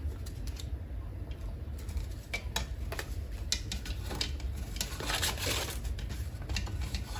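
Paper banknotes rustling and a plastic desk sorter's sleeves crinkling and tapping as bills are pulled out and laid down, with light ticks throughout and a longer rustle about five seconds in.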